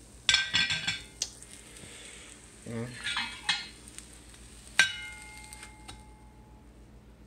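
Glass Corning Visions frying pan clattering and scraping against the gas stove's grate as it is lifted and tipped to slide an omelet onto a paper plate. A sharp knock a little before five seconds in leaves the glass ringing briefly.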